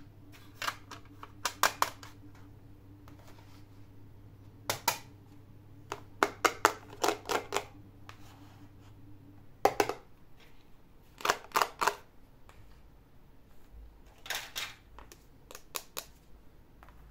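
Small plastic toy pieces being handled: sharp clicks and taps in short clusters a few seconds apart.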